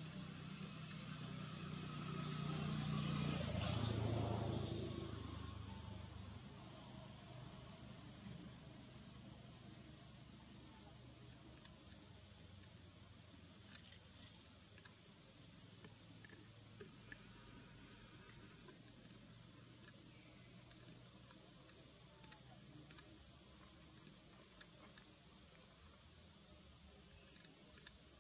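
Insects in the forest making a steady, high-pitched drone.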